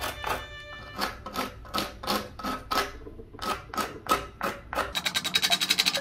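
Background music with a steady, plucked or tapped beat. About five seconds in it changes to a quick run of bright, rapid notes.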